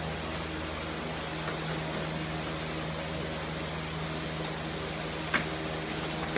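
Steady mechanical room hum, with a single sharp smack about five seconds in from a gloved strike landing during sparring, and a fainter tap a second before it.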